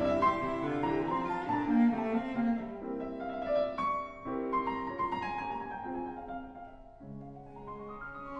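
Background instrumental music: slow, sustained bowed-string notes with piano.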